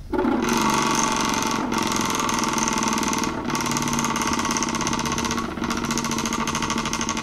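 Prize wheel spinning fast, its pointer flapper clicking against the rim pegs in a rapid, continuous rattle that starts abruptly.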